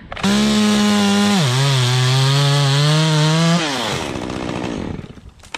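Chainsaw at full throttle cutting through a standing tree trunk. Its pitch drops sharply as the chain bites into the wood about a second in, then slowly climbs back. The saw lets off a little past the middle, and the engine winds down as the cut section breaks away.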